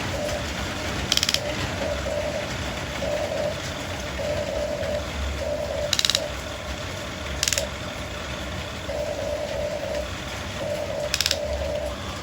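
Small electric motors and plastic gears of a radio-controlled excavator whining in short on-off runs as it works, with four brief ratcheting rattles.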